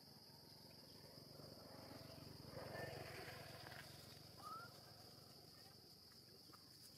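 Faint, steady high-pitched chirring of insects, with a short rising squeak about four and a half seconds in.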